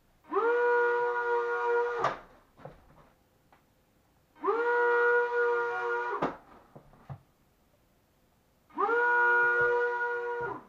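Small electric propeller motors of a lightweight foam RC plane, salvaged from a wall-climbing car, whining up quickly to a steady high pitch for about two seconds and then cutting off, three times. Each run ends with a light knock.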